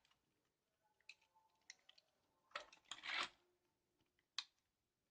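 Faint, scattered clicks of small parts being handled as an LED is fitted into a mechanical keyboard's circuit board, with one short rustle about three seconds in.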